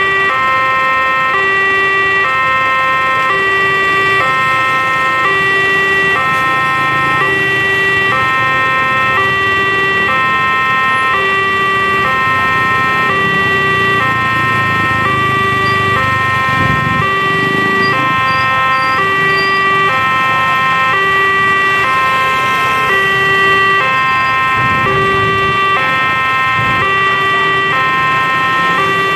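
Railway level-crossing warning alarm sounding: an electronic two-tone chime that alternates steadily between a higher and a lower note, the signal that a train is approaching. Under it is the low running of waiting cars and motorbikes, with engines swelling close by twice, about halfway through and near the end.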